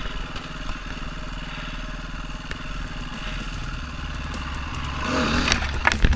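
KTM 350 EXC-F's single-cylinder four-stroke engine running as the bike rides a rough forest trail. Near the end it gets louder and there are several sharp knocks.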